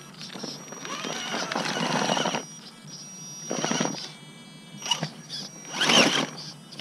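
Gmade GOM electric RC rock crawler climbing over rocks: its motor and geartrain whine under load in bursts, with tyres scrabbling on the stone. The longest burst comes about a second in, and shorter ones follow; the loudest is near the end.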